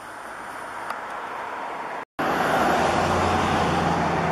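A road vehicle passing, its tyre and engine noise building over about two seconds. The sound drops out completely for a split second, then comes back louder and steadier with a low engine hum, easing a little near the end.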